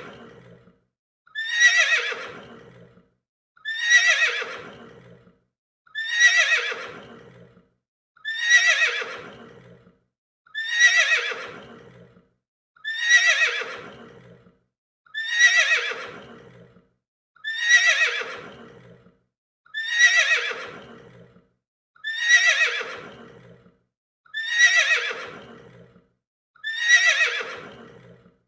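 A horse neighing: the same whinny repeated about every two seconds, a dozen times, each call dropping in pitch as it trails off.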